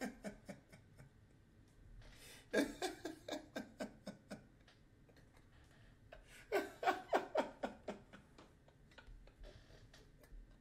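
A man laughing hard into a headset microphone, wheezing and nearly silent between two bouts of quick ha-ha pulses: one starts between two and three seconds in, the other about four seconds later.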